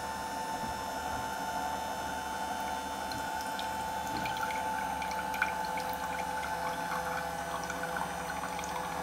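JUlaVIE cold press juicer running with a steady hum while pressing a bag of chopped produce, juice trickling and dripping from its spout into a glass. A single sharp click about halfway through.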